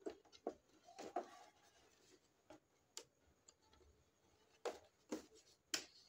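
Faint, scattered light clicks and taps of handling, about seven in six seconds, with three louder ones in the last second and a half.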